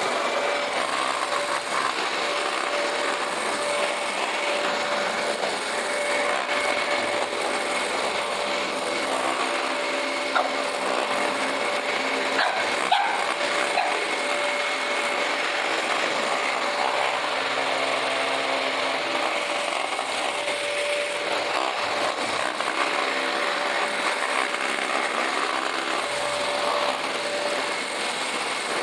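Household vacuum cleaner running steadily: a constant motor whine over rushing air noise. A couple of brief sharp knocks come about a third of the way in.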